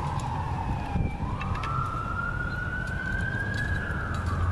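Emergency vehicle siren in a slow wail: falling in pitch, rising again over about three seconds, and starting to fall once more near the end, over a low steady rumble.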